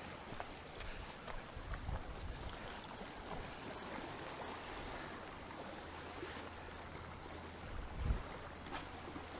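Small sea waves washing and lapping against rocks, with light wind buffeting the microphone, strongest about two seconds in and again near the end.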